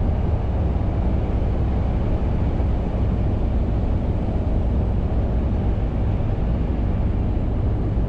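Steady engine and road noise inside a Mercedes truck cab while driving, mostly a low rumble.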